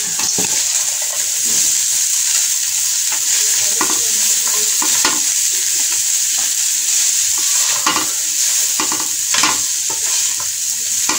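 Shredded cabbage, carrot, capsicum and chicken stir-frying in oil in a karahi: a steady sizzle with irregular scrapes and rustles as a spatula turns the vegetables over.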